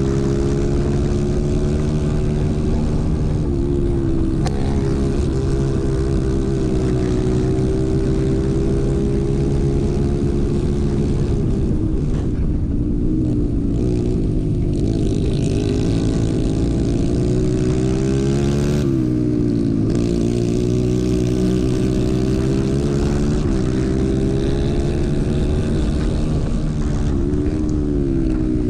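Racing go-kart engine at high revs, heard from on board. Its pitch dips each time the kart slows for a corner and climbs again as it accelerates down the straights.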